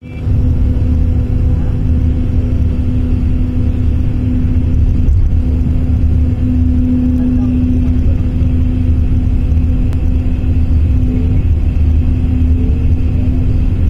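Road vehicle travelling at highway speed: a steady low rumble of engine and tyre noise with a constant droning hum.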